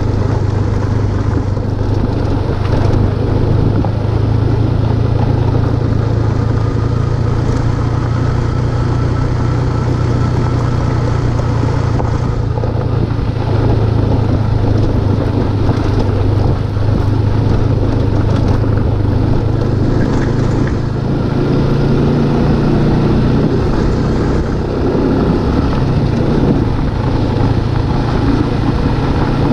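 Motorcycle engine running steadily while riding, a constant low hum under a steady rushing noise.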